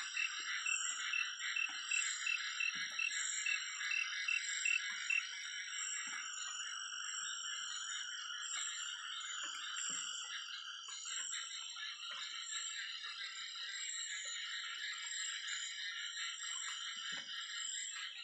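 Night chorus of frogs and insects: a steady high insect drone, with a frog calling in a regular series of short high notes, about two a second, that stops about five seconds in.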